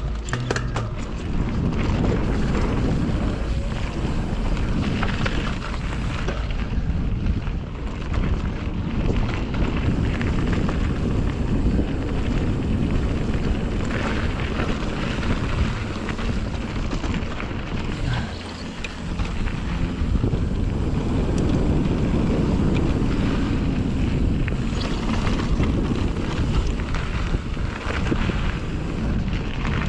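Wind buffeting the microphone of a camera on a Fezzari La Sal Peak mountain bike riding fast down a dirt trail, over continuous tyre noise and the bike's rattling over bumps.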